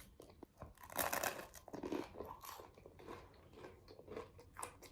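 Someone biting into and chewing crunchy buttered toast: a run of irregular crunches, loudest about a second in.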